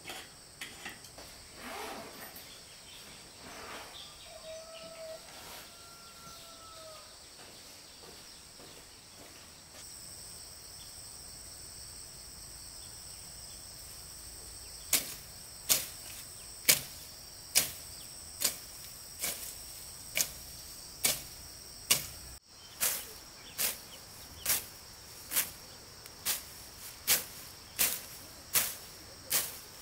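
Insects droning steadily in two high, thin tones. From about halfway through comes a run of sharp, evenly spaced knocks, a little more than one a second and much louder than the drone.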